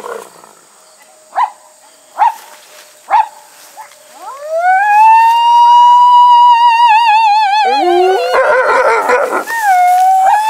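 Gray wolves: three short yelps, then a long howl that rises about four seconds in and holds, wavering. About eight seconds in, a rough, harsh chorus of several wolves breaks in over it, and the howl carries on.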